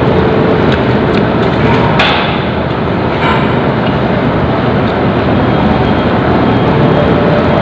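Vehicle running, a steady loud rumble of engine and road noise, with a sharp click about two seconds in and a fainter one about a second later.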